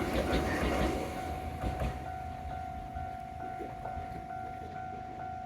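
Railway level-crossing warning bell ringing in an even pulse about twice a second, while the rumble of a train that has just passed over the crossing fades away.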